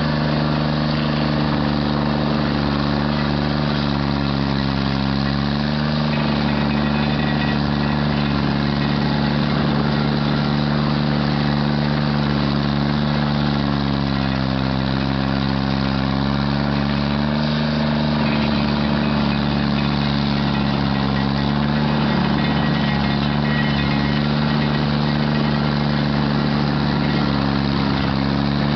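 Stump grinder's engine running steadily. Its pitch sags for a second or two several times, about 4, 14, 21 and 28 seconds in, as the engine takes load from the cutter wheel biting into the stump.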